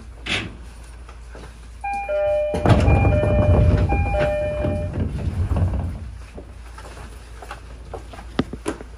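Electronic two-note door chime of a JR East 205 series commuter train sounding twice, from about two seconds in. It is overlapped by a loud, low rushing noise that fades out about six seconds in, over the steady rumble of the train.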